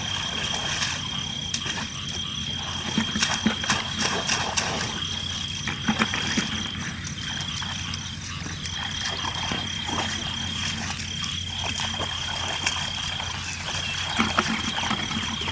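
A high, steady animal trill, likely from frogs or insects, held for a second or two at a time with short breaks. It sits over a low steady hum, with scattered light knocks.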